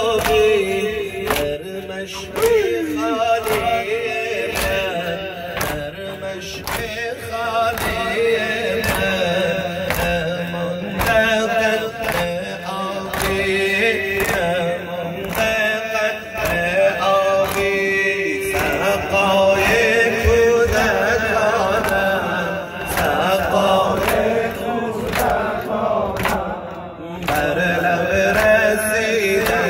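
A male reciter chanting a Shia mourning lament (noha) through a microphone and PA, over the rhythmic chest-beating (matam) of the congregation: hand slaps landing together about three times every two seconds.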